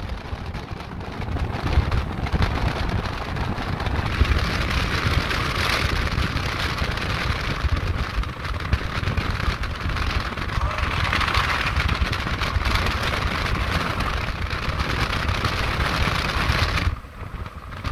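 Wind buffeting the microphone over a steady low rumble of road and vehicle noise, riding in the open back of a moving vehicle. It dips briefly near the end.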